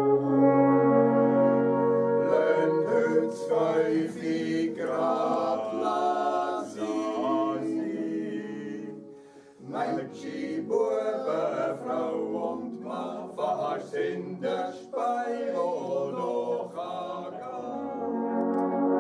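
Swiss men's choir singing long, held chords in harmony, with a brief break about halfway through.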